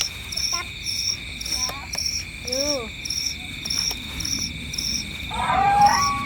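Night insects, crickets, trilling steadily, with a higher chirp pulsing about twice a second. A short call sounds near the middle. Near the end a louder sound with a steady tone comes in.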